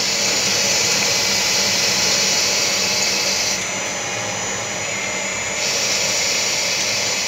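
A Takamaz X12 CNC lathe runs its automatic turning program, its spindle spinning and the tool cutting the workpiece. It makes a steady machine whir with a strong high hiss, and the hiss drops back for about two seconds midway before it returns.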